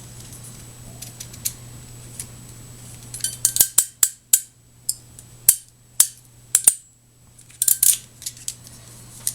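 Hand HDMI termination tool crimping the metal shield onto an HDMI field-termination connector: a run of sharp metallic clicks and snaps over several seconds, bunched about three seconds in and again near the end.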